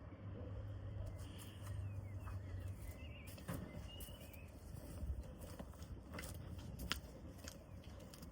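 Footsteps and scattered light knocks and clicks over a low steady hum, from handling car seats while fitting them back in.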